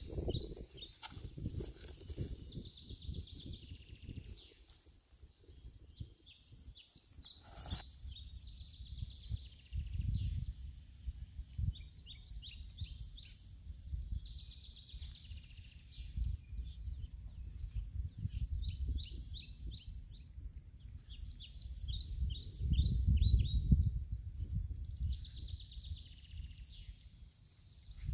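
Birds calling in short phrases of quick, high chirps, repeated over and over, over a low, uneven rumbling noise that swells loudest about four-fifths of the way through.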